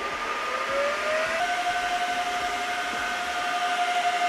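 IBM System x3650 M2 rack server's cooling fans spinning up during boot. A whine rises in pitch for about the first second and a half, then holds steady and gets a little louder.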